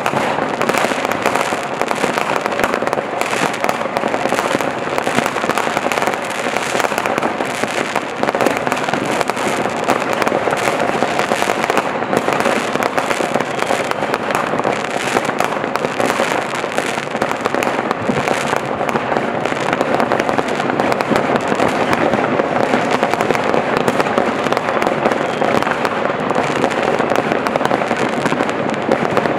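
Fireworks set off all around a built-up area: rockets and firecrackers bang and crackle in a dense, unbroken stream of sharp reports, many overlapping at once, with no lull.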